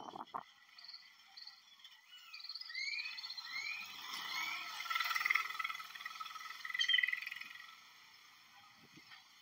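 Animal calls: a series of short rising chirps, then a stretch of rapid trilling that peaks twice before fading.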